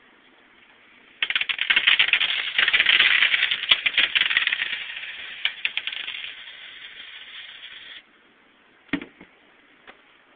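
Loose coins rattling as they are shaken out of a shoe and spill onto a hard surface: a dense clatter that starts about a second in, is loudest for the next few seconds, then thins out and stops. A single clink follows about a second later.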